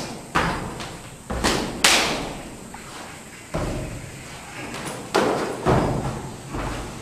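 Sharp foot stamps and slaps from a Praying Mantis kung fu form on a wooden floor. There are about seven irregular hits, each with an echo that dies away in the bare hall.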